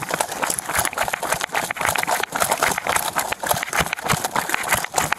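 Running footfalls: a rapid, irregular run of thuds and scuffs.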